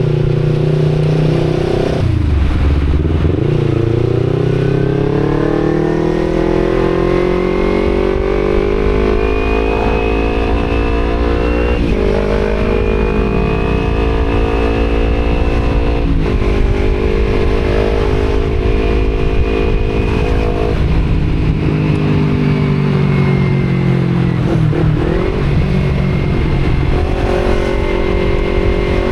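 Kawasaki Z250 parallel-twin engine through an Akrapovic exhaust under way: the pitch climbs through a long pull, drops sharply at two gear changes, holds steady, then falls back and rises again near the end.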